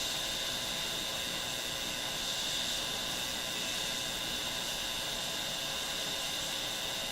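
Steady hiss with a steady high-pitched tone from a Zenith K510GA tube AM radio's speaker, tuned to a signal generator's 1620 kc signal during alignment of the oscillator transformer.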